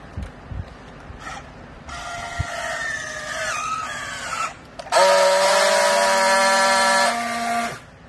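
Battery-powered handheld strapping tool on a plastic strap: its motor whines for about two and a half seconds as it pulls the strap tight, sagging a little in pitch under the load. After a brief pause it gives a louder, steady buzz for nearly three seconds while it friction-welds the strap ends, then cuts off suddenly. A few light clicks come at the start.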